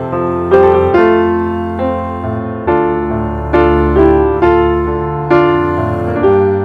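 Background piano music: slow, gentle notes and chords struck about once a second, each decaying before the next.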